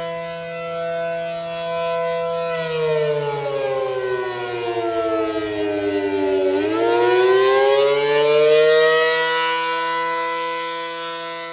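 ACA Allertor 125 dual-tone rotating siren sounding its chord at full speed. About two and a half seconds in the pitch slides down for about four seconds, then climbs back over about three seconds to the steady chord: one wail cycle of the attack signal. The loudness swells and fades as the siren head turns.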